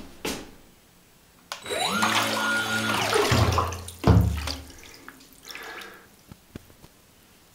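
Small electric motor of a radio-controlled rubber duck in a bathtub spinning up with a rising whine and churning the water. It runs for about two seconds, then winds down, followed by a second short sudden burst of water noise a little after that.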